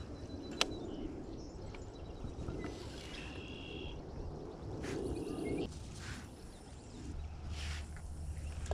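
Creekside outdoor background: a few short bird chirps and a brief insect-like buzz over a steady rustle of grass and wind, with one sharp click about half a second in.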